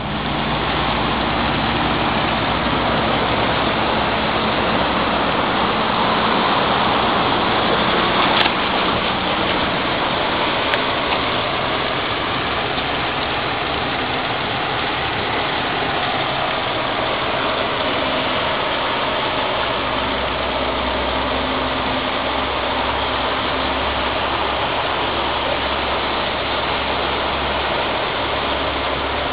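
Steady rushing of storm runoff flowing across a flooded street, with a car engine running underneath. A single click about eight seconds in.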